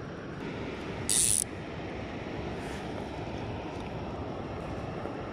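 Steady rushing of flowing stream water, with one brief sharp hiss about a second in.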